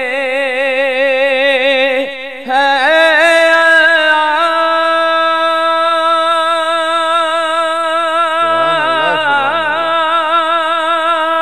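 A man singing an unaccompanied hamd into a handheld microphone, holding long notes with a steady vibrato. He breaks briefly about two seconds in, then holds one long note, and a second, lower voice comes in under it near the end.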